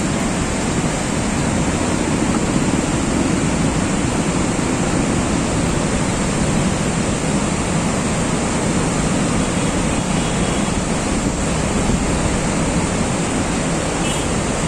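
A cold lahar, a volcanic mudflow from Mount Semeru, rushing down the river gorge as a steady, unbroken noise.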